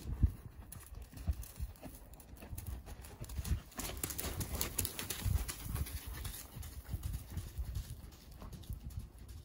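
Hoofbeats of a horse moving over soft arena sand: a steady rhythm of dull, low thuds. A hissing noise rises over them for a couple of seconds around the middle.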